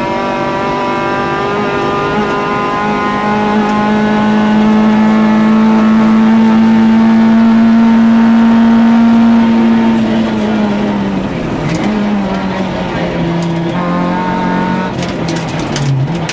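Peugeot 106 Group A rally car's four-cylinder engine heard from inside the cockpit, driven hard on a dirt road. It holds high, steady revs for about ten seconds, then eases off and drops in pitch, with a cluster of sharp clicks near the end as the car slows for a corner.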